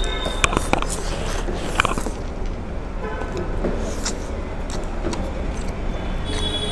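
Road traffic runs steadily with short car-horn toots near the start, about halfway and near the end, over scattered wet slurping and mouth clicks as noodles are eaten straight off plates.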